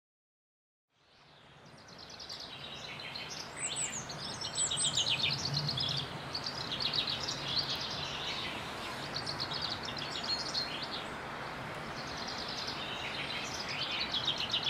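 Woodland songbirds singing: repeated quick, trilling phrases over a steady background hush. The sound fades in about a second in.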